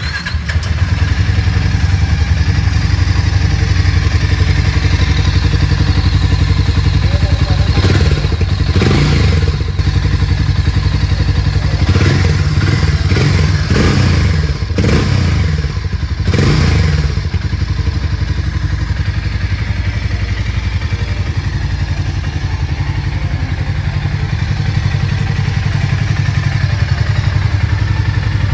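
Harley-Davidson X440's single-cylinder engine idling through its exhaust, with a series of short throttle blips in the middle before it settles back to a steady idle.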